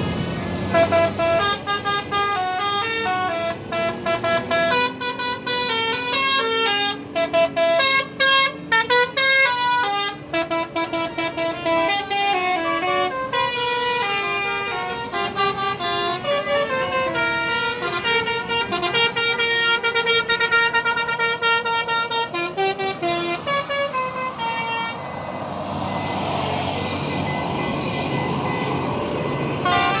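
Basuri multi-tone bus horns (telolet horns) playing quick melodic runs of stepped notes with short breaks, from about a second in until about 24 s in. After that, bus engines and road noise as the vehicles pass.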